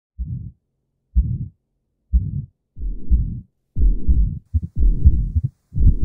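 Recorded heartbeat: low, dull beats about once a second at first, growing louder and longer until they nearly run together near the end.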